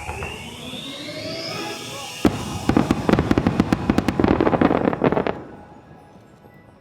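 Fireworks exploding: a loud bang a little over two seconds in, then a rapid run of sharp crackling bursts for about three seconds that dies away near the end.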